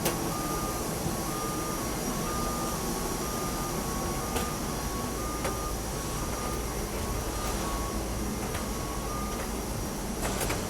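Reversing alarm of an airport ground vehicle beeping steadily, about one and a half beeps a second, stopping near the end, over a steady low rumble.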